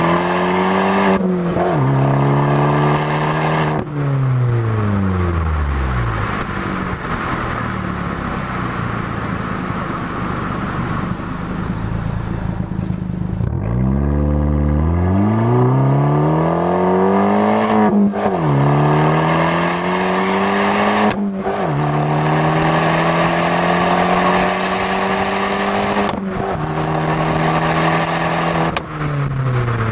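Fiat 500 Abarth's turbocharged four-cylinder engine and exhaust under hard acceleration, the engine note climbing through each gear and dropping sharply at several upshifts, with stretches where the revs fall away as the car slows.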